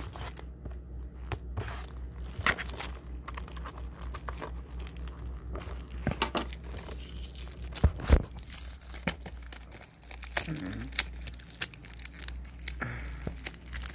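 Plastic shrink-wrap being torn and crinkled off a DVD case: irregular crackles and sharp clicks, with a few louder snaps, over a steady low hum.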